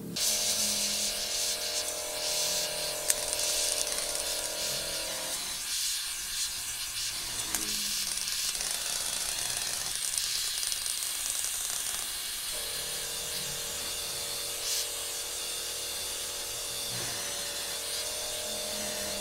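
Gas welding torch flame hissing steadily while it welds up a leaking hole around the gear-shift shaft in a motorcycle engine side cover. A steady hum runs under it and drops out for several seconds in the middle.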